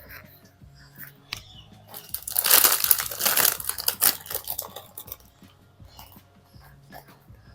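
Close crinkling and rustling for about three seconds, starting about two seconds in, dense with fine crackles.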